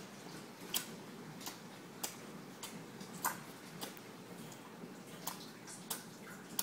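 A toddler chewing steak with his mouth open: short wet smacking clicks about every 0.6 s over faint room hiss.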